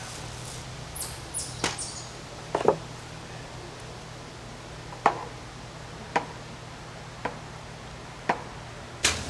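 A spoon knocking and clinking against a cooking pot while stirring soup: a quick cluster of taps, the loudest about two and a half seconds in, then single knocks about a second apart. A steady low hum runs underneath.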